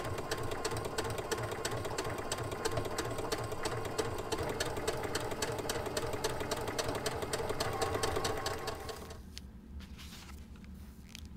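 Electric domestic sewing machine stitching a seam at a steady running speed, a fast even clatter of the needle over the motor's hum. It stops about nine seconds in.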